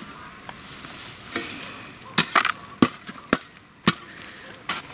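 Metal garden spade digging potatoes: the blade scrapes and crunches into loose soil and levers it up. Several sharp knocks come about halfway through.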